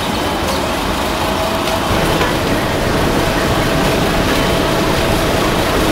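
Steady street traffic noise: a dense, even rumble of vehicles with a faint steady hum running through it.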